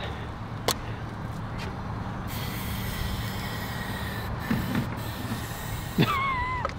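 Aerosol can spraying fuel into a PVC combustion potato cannon's chamber: one long, steady hiss of about three and a half seconds, starting about two seconds in. It is a big charge of spray, meant to give a big explosion.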